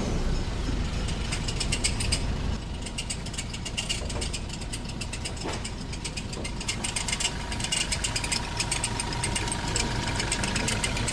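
Toyota Innova Crysta diesel engine idling with a rapid, steady ticking rattle from the front belt drive. This is the sign of a worn V-belt (fan belt) tensioner and alternator pulley.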